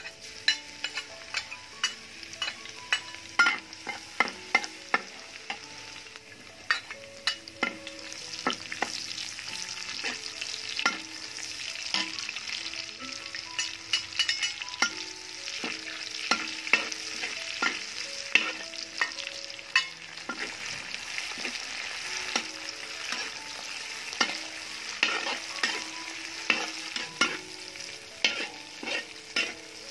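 Stir-frying in a metal wok: oil sizzling steadily under garlic, shallots, chili and shrimp, while a metal spatula clanks and scrapes against the wok many times. The sizzle grows louder about eight seconds in.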